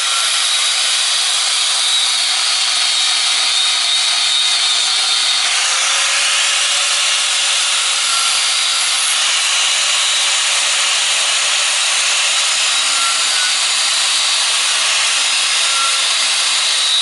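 A power grinder grinding metal: a loud, steady grinding hiss that never pauses.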